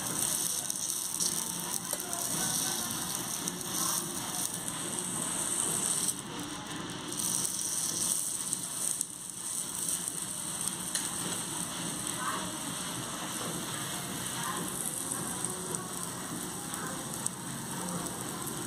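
Oil sizzling steadily under an egg dosa frying on a small iron dosa tawa.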